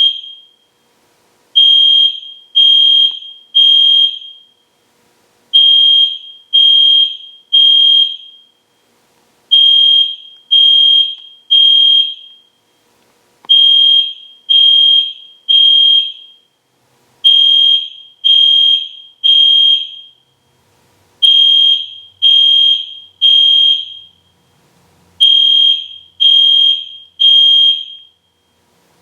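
EST Genesis fire alarm horn sounding at full volume in the temporal-3 pattern: three loud, high-pitched beeps, a pause, then three more, repeating about every four seconds. This is the standard fire evacuation signal.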